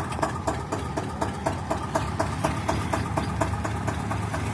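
Eicher 241 tractor's single-cylinder diesel engine running with the front loader raised, a steady beat of sharp firing knocks several times a second.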